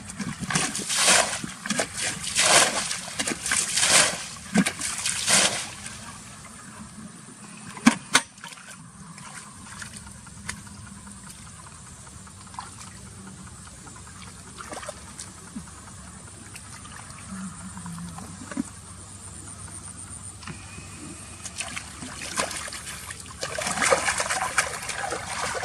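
Water splashing in a quick run of bursts for the first few seconds, then a quieter stretch with light trickling, and more splashing near the end.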